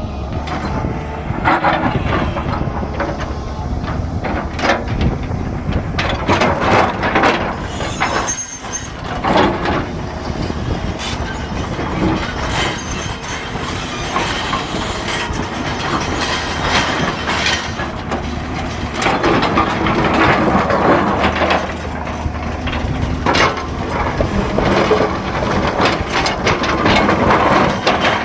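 Excavator diesel engine running with a steady drone, while stones scrape, knock and clatter against each other and the steel bucket as the machine moves them.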